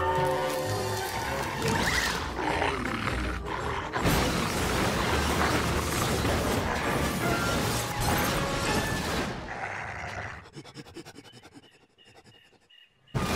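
Cartoon soundtrack: dramatic music, then a long stretch of loud crashing and rumbling effects as a mutant dog tears through a car's roof. About ten seconds in it drops away to near quiet.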